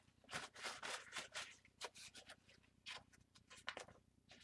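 Faint, irregular rustling and scraping of craft materials being handled, in many short strokes.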